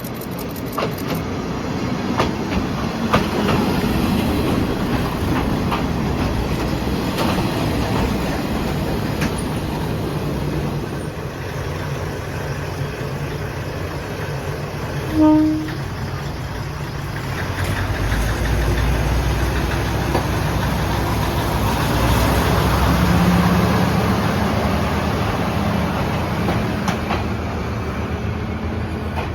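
Kominato Railway diesel railcar running through the station, its engine and wheels on the rail joints sounding throughout. It gives one short horn blast about halfway through, and its engine grows heavier in the second half.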